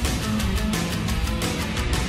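Electronic dance music track with a fast, steady drum beat.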